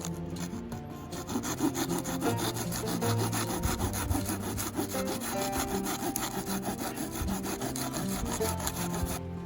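A saw cutting through wood in repeated strokes, over background music.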